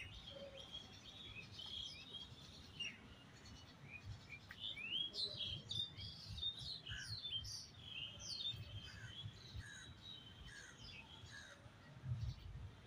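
Several birds chirping and singing, with many quick downward-sweeping chirps; from about seven seconds in, one bird repeats a short lower note roughly every ¾ second. A low bump near the end.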